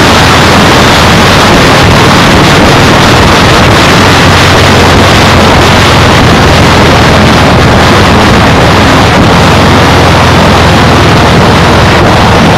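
Loud, steady wind rushing over an action camera's microphone while riding at speed, with a steady low hum underneath.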